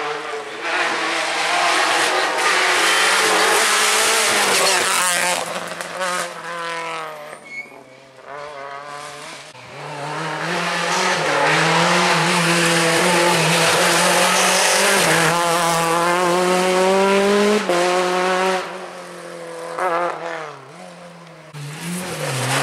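Rally car engines revving hard through the gears, rising in pitch and dropping at each gear change. The sound fades away twice, and near the end another car's engine comes up.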